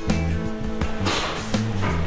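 Background music with a bass line that moves from note to note.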